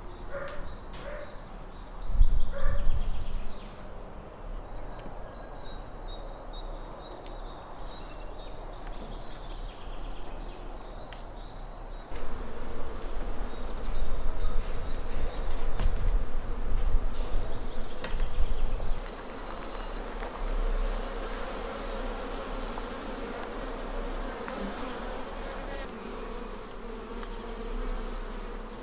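Honeybees buzzing in a steady hum around opened hives while frames covered in bees are lifted out, with bursts of low rumble. Short high chirps, like small birds, come in the first part.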